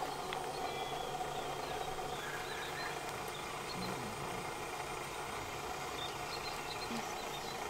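Steady outdoor background hum with a few faint, scattered bird chirps.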